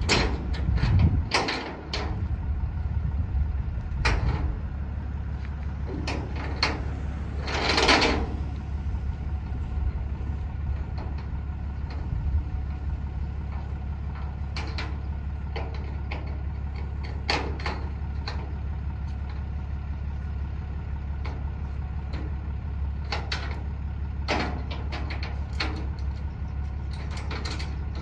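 Flatbed tow truck's engine idling with a steady low hum, while short metallic clicks and rattles come at intervals from a car's rear-wheel tie-down being fastened on the truck's bed. One longer, louder scrape comes about eight seconds in.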